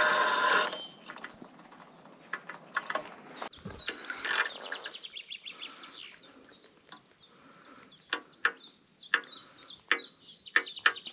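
A hooked chub being played in on a float rod close to the bank, with sharp clicks and splashes that come thickest near the end, while small birds chirp. A loud rush of noise cuts off under a second in.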